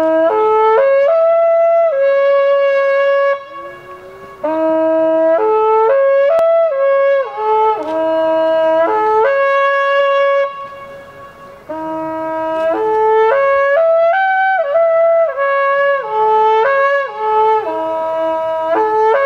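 A midwinterhoorn, the long curved wooden horn of Twente, blown in three phrases of held notes that leap up and down between the horn's natural overtones, with two short breaks between phrases.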